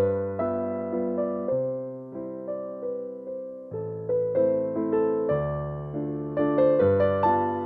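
Background music: a gentle electric piano melody over chords, notes struck every fraction of a second and dying away.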